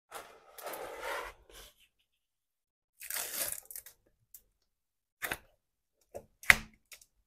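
Clear plastic protective film being peeled back from the adhesive surface of a diamond painting canvas: a crackling, tearing rustle twice, then a few short sharp clicks near the end. The adhesive underneath is good and sticky.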